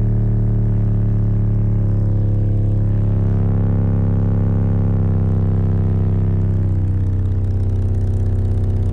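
Car subwoofers (an 18-inch Skar, two Toro 15s and four Toro 12s in a ported box) playing a loud, steady low bass tone from a bass frequency-sweep track, with a buzzy edge to it.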